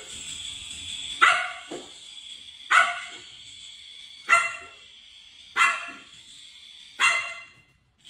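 Small puppy barking at a rat: five sharp, high yapping barks about a second and a half apart, with a softer one just after the first.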